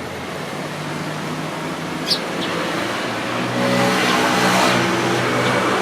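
A road vehicle's engine passing close, its hum swelling to its loudest about three and a half seconds in. Two short, high sparrow chirps about two seconds in.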